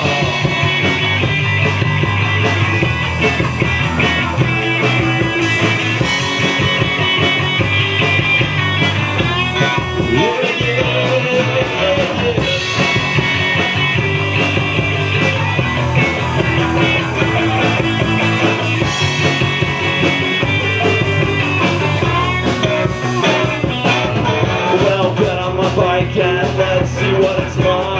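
Live rock band playing an instrumental passage between verses: electric guitars, electric bass and drums, loud and steady.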